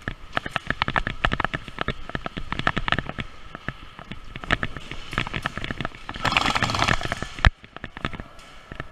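Airsoft gunfire: quick irregular strings of sharp snapping shots, with a dense hissing stretch about six seconds in that ends in one sharp crack.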